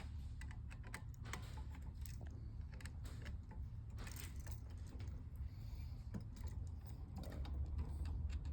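Irregular light clicks and taps of wires and wall switches being handled and fastened to the switch terminals, over a steady low hum.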